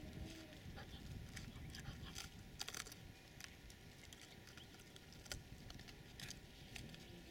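Wolfdog pup gnawing and tugging at a dry, crumbly log, its teeth giving irregular cracks, clicks and scrapes on the wood, with a cluster of sharper snaps about two and a half seconds in and another single crack a little past five seconds.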